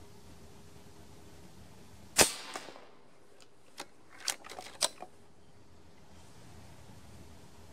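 Reximex Throne PCP air rifle in 6.35 mm firing one shot, a sharp crack with a short tail about two seconds in. It is followed by a run of small metallic clicks over the next few seconds as the cocking lever is worked to load the next pellet.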